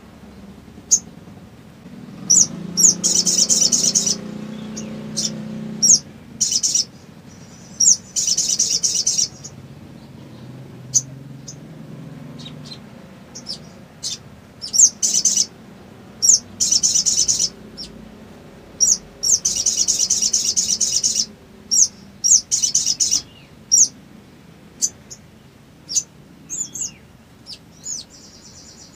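Male olive-backed sunbird singing: repeated bursts of rapid, high trills, each a second or two long, with single sharp chirps between them.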